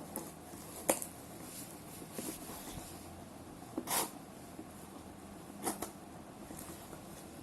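Hands working at opening a package: a sharp click about a second in, a brief rustle or scrape near the middle, and a couple of small scrapes a little later, over quiet room hiss.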